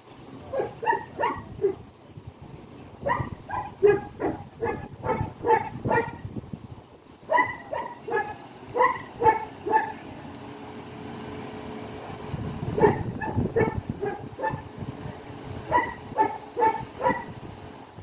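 A dog barking repeatedly in bouts of several quick barks, with a short pause between bouts. A steady hum runs under the barking near the middle.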